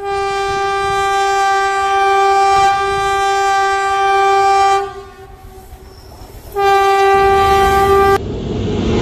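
Diesel locomotive horn sounding a long blast of about five seconds on one steady note, a short gap, then a second blast of about a second and a half. Near the end, a loud rumble and rushing noise as the train passes close by.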